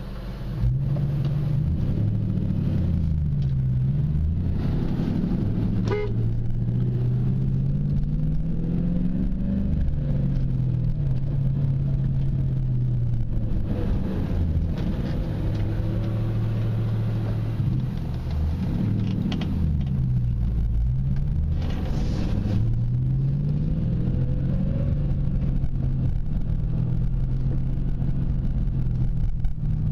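2000 Ford Mustang GT's 4.6-litre V8 engine pulling through the gears on the road, heard from inside the car. Its pitch climbs as it accelerates and drops back at each gear change or slowdown, several times over.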